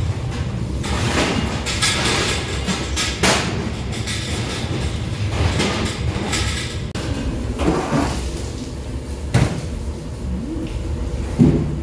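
Gloved hands tossing sauce-coated fried pork pieces against a large metal wok, giving irregular scrapes and knocks over a steady low rumble.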